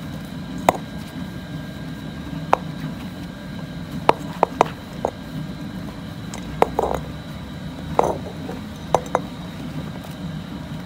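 Diced aubergine being dropped and spread by hand in an earthenware cooking pot: scattered light clinks and taps against the clay, about a dozen over the stretch, some in quick runs of two or three, over a steady low hum.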